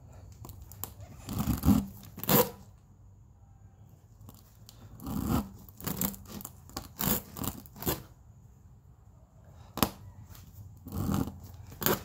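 A tire plug kit's reamer being pushed in and out of a puncture hole in a car tire tread, rubber scraping against the tool in a series of about ten short rasps, with one sharp click about ten seconds in. This is the hole being reamed, roughened and cleaned to take a plug.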